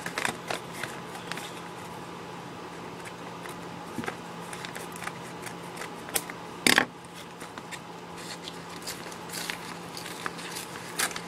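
A cardboard shipping box being opened by hand: scattered scrapes, clicks and crinkles of packaging and tape, with one brief, louder tear about two-thirds of the way through.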